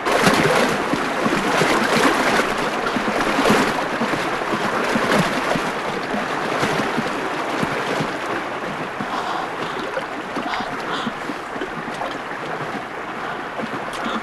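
Water gushing and churning. It starts abruptly and loud, then slowly eases to a steady rushing.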